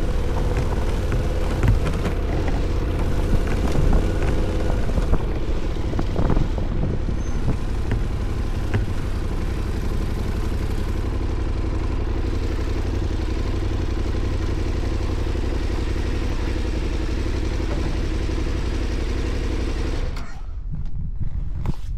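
KTM 1290's V-twin engine running at low speed as the motorcycle rolls slowly over gravel, then settling to a steady idle. The engine is switched off and cuts out suddenly about two seconds before the end.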